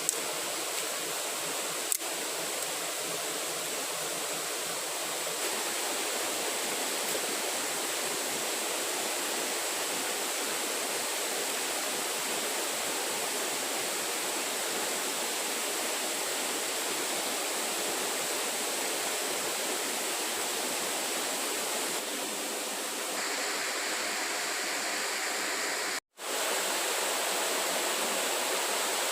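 Steady rushing of running water, with a faint steady high-pitched tone over it and a brief dropout near the end.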